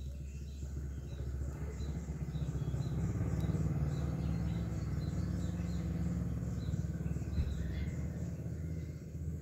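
A tabby-and-white cat purring as it is stroked: a fast, even, low pulsing that grows louder about two seconds in. Small birds chirp faintly in the background.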